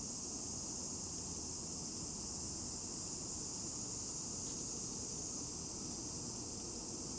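Steady high-pitched insect chorus, unbroken and even in level, over a faint low rumble.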